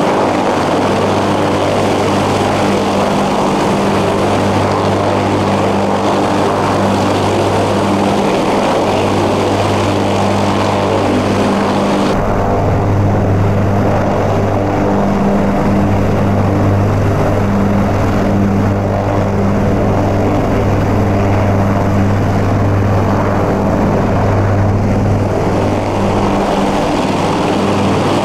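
USMC AH-1Z Viper and UH-1Y Venom helicopters running on the ramp, their twin turboshaft engines and four-blade rotors turning, a loud steady drone with a low hum. About twelve seconds in the sound shifts abruptly, the low hum growing stronger and the high end dropping away.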